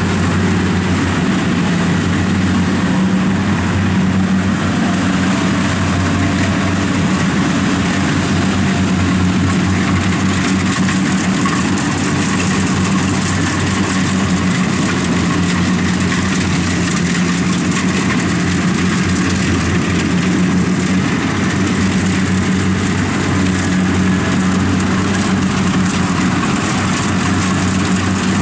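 Kubota combine harvester's diesel engine running at a steady, even pitch while it cuts rice.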